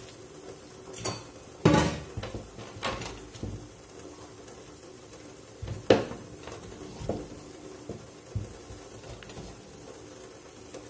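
Kitchen utensil clatter: about half a dozen scattered knocks and clinks of steel utensils and a wooden rolling pin on a wooden board, the two loudest about two seconds and six seconds in, over a faint steady hum.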